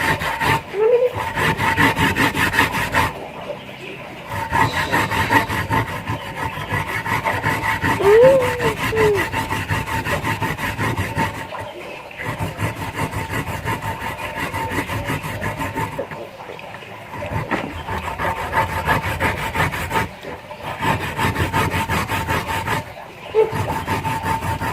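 Rapid rubbing or scraping strokes, kept up in bouts that stop briefly about five times.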